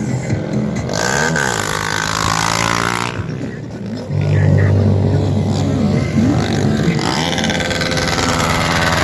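Motorcycle engines revving hard, their pitch rising and falling again and again. A louder, steadier low engine sound comes in about four seconds in.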